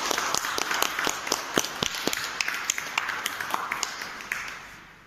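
A few people clapping their hands, with individual claps heard separately, dying away about four and a half seconds in.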